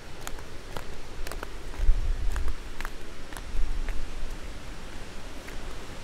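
Footsteps on a stone-paved jungle path, short scuffing clicks about two a second over steady outdoor noise, with a low rumble on the microphone about two seconds in and again near four seconds.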